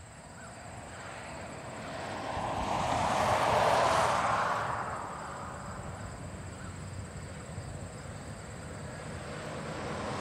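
A vehicle passing by: a rushing sound that swells to its loudest about four seconds in and then fades, leaving a steady background rumble.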